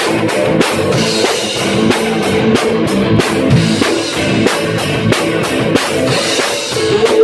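A rock band playing together: drum kit with Vector cymbals keeping a steady beat under electric guitars and bass guitar. It is the song's instrumental introduction, before the singing comes in.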